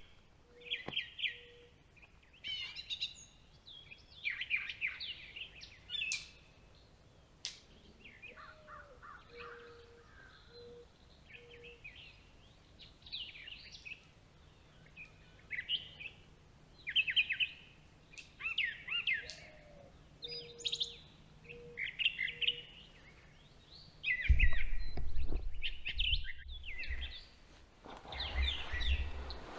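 Several birds chirping and singing in many short, varied calls, with a few short repeated lower notes among them. A low rumbling noise comes in twice near the end.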